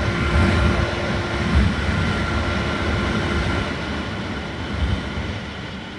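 Yamaha Phazer 250's inline-four engine running steadily while under way, with heavy wind and road rumble. A steady whine in the engine note stops about three and a half seconds in, and the sound then eases off.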